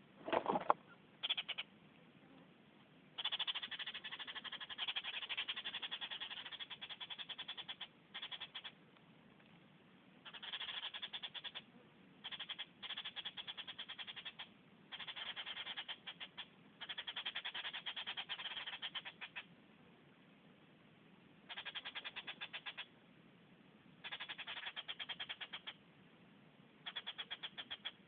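Repeated bursts of a rapid pulsed trill, each lasting one to four seconds and starting and stopping abruptly, with about nine bursts and short gaps between them. A brief sharp knock comes about half a second in.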